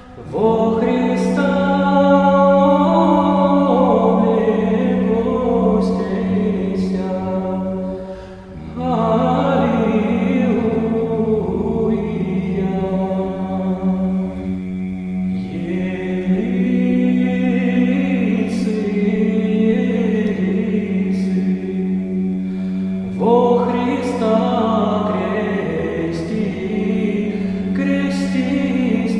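Orthodox church choir singing a slow chant over a held low drone note, in long phrases with a brief break about eight seconds in and a fresh entry about twenty-three seconds in.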